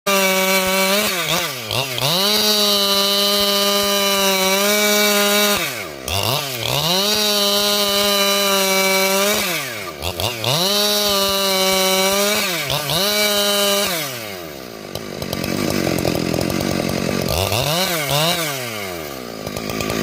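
Two-stroke chainsaw sawing lengthwise through a wooden plank at high revs. The engine pitch drops sharply and recovers several times, runs lower for a few seconds, then rises again near the end.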